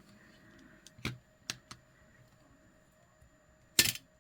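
Light clicks and taps of small hard objects handled on a tabletop: a few about a second in, then one louder clatter near the end.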